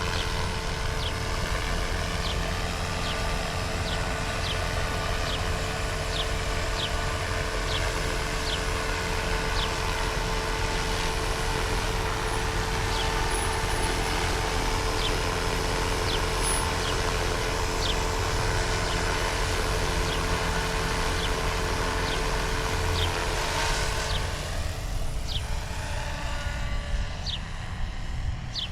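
Small helicopter flying low, its engine and rotor making a steady drone with a deep rumble. About 24 seconds in, the steady hum drops away and the sound shifts, with gliding tones.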